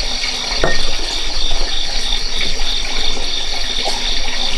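A steady, loud high-pitched hiss with a fast pulsing texture fills the background. A few light clicks of chopsticks on dishes sound over it.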